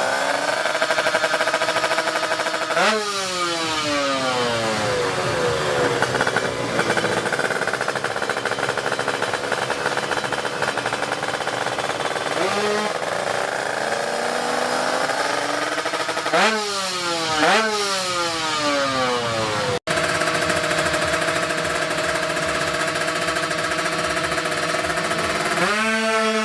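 Two-stroke Kawasaki Ninja drag-bike engine, bored up to 155cc, running with a buzzy multi-note drone. It is revved hard several times, its pitch shooting up and then falling away over a second or two, about three seconds in, twice in quick succession past the middle, and again near the end.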